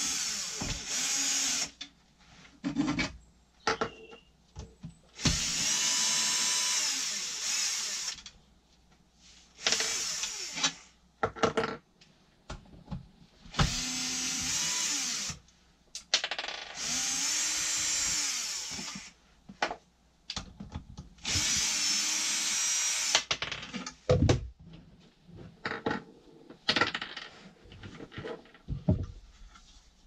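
Electric drill-driver running in about eight short bursts of one to three seconds, spinning up and down each time as it backs out the screws holding the cover on an isolation transformer case. Small clicks and knocks of handling come between the runs.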